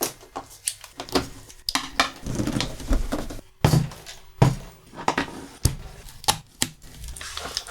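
Hard objects being handled: an irregular run of clicks, taps and light knocks, some with a dull thump. A faint steady hum sounds under them from about halfway through.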